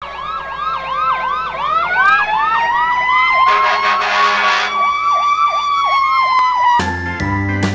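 Emergency vehicle sirens: a fast yelp siren warbling several times a second, overlapped by a slower siren wailing up and down, with a harsh horn blast about three and a half seconds in. Music starts shortly before the end.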